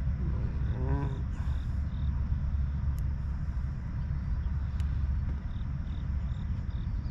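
Steady low rumble, with a faint high chirp repeating two or three times a second in two short runs, and a brief wavering tone about a second in.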